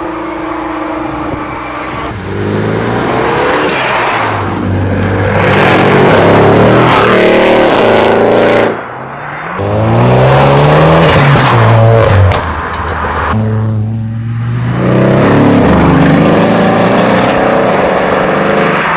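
Several sports car engines accelerating hard one after another, each revving up through the gears with a rising pitch. The sound changes abruptly from one car to the next several times.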